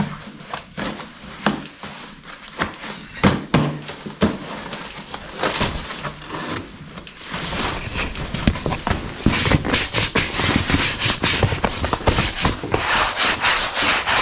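Heavy leather draft-horse collars being handled, with scattered knocks and thumps. From about halfway a dense, steady scraping rub takes over: a collar rubbing against the camera.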